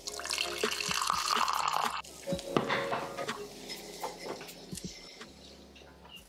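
Tea poured from a glass teapot into a ceramic cup: a steady stream of liquid for about two seconds that stops sharply. It is followed by a knock as the teapot is set down on its wooden stand, then a few lighter clinks.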